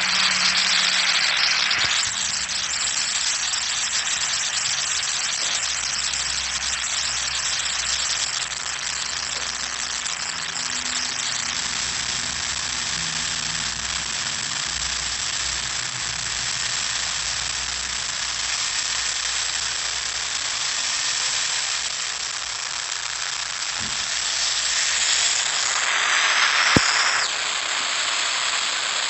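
A long, distorted explosion sound effect: a loud, steady rush of hissing noise that swells louder about 25 seconds in, with a sharp click near the end.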